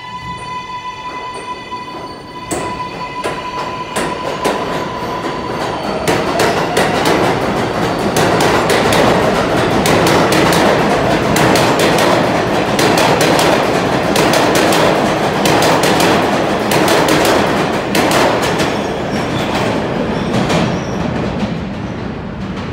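R188 subway train pulling out of the station: its traction motors whine at a steady pitch for the first few seconds. Then comes a growing rumble with rapid clicking of wheels over rail joints as the cars pass, fading near the end as the train leaves.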